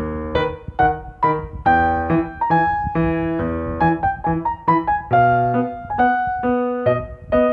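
Background piano music: a light melody of single struck notes, two or three a second, each ringing briefly and fading.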